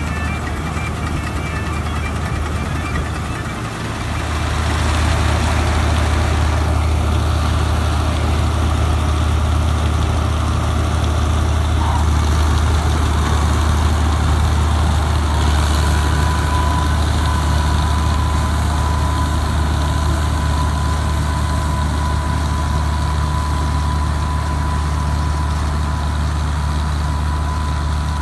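Guru Nanak 985 combine harvester's diesel engine running steadily, a heavy low drone, while it harvests and unloads grain. It grows louder about four seconds in, and a thin steady whine joins about halfway through.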